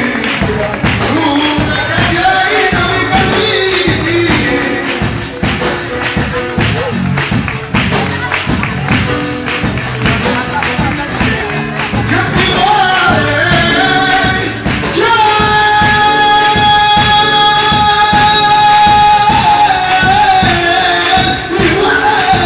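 A man singing a praise song through a microphone and PA over a steady rhythmic beat. About two-thirds of the way through he holds one long high note for several seconds, then the melody moves on.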